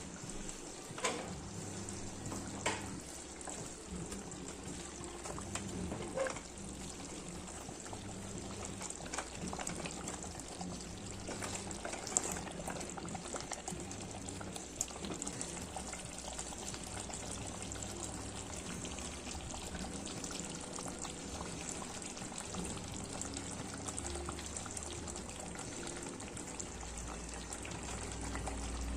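Curry bubbling steadily as it cooks in the pot, with scattered small crackles and a few light knocks in the first few seconds.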